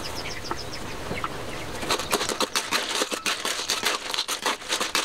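Snails in their shells frying in a metal wok with a steady sizzle. About two seconds in, a spatula starts stirring them, and the shells clatter against the pan in quick, irregular clicks. A bird chirps rapidly at the very start.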